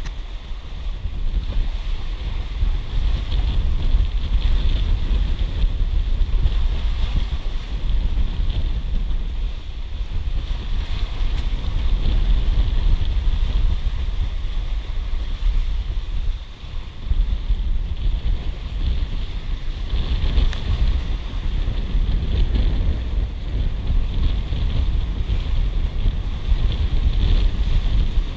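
Wind buffeting the microphone over the steady rush and splash of seawater along the hull of a sailboat under way in open sea.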